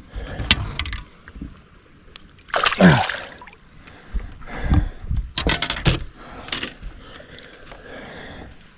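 Hooked largemouth bass splashing at the surface beside the boat as it is landed, with several sharp knocks and rattles; one loud falling swish about two and a half seconds in.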